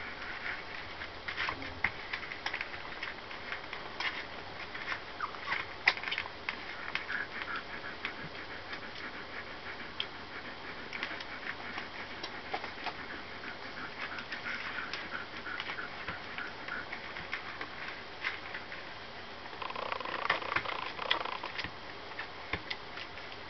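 Newborn borzoi puppies nursing: many small suckling clicks and smacks with short high squeaks. There is a louder stretch of squeaking about twenty seconds in.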